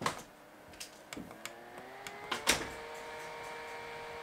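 Francfranc handheld fan switched on by its push button: several clicks, and the motor's whine rising in pitch in two steps as it speeds up, then running steady from about two and a half seconds in.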